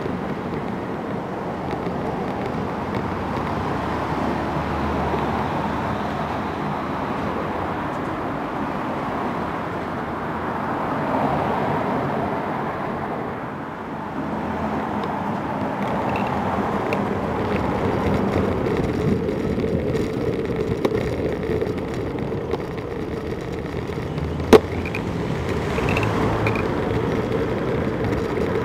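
Bicycle-mounted camera picking up steady tyre, wind and road noise on a ride through light car traffic. About two-thirds of the way through a steady hum joins in, and a single sharp click comes near the end.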